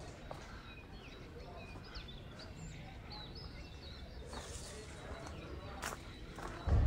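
Outdoor ambience with small birds chirping in short scattered calls over a steady low background, a couple of sharp clicks, and a louder low thump near the end.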